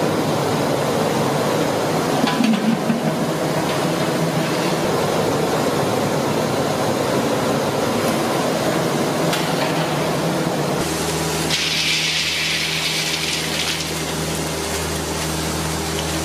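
Hot oil sizzling steadily as bread slices deep-fry in a large kadai and are lifted out with a slotted spoon. About eleven seconds in the sound changes to a steady low hum under the frying, with a louder hiss for a couple of seconds as nuts fry in the oil.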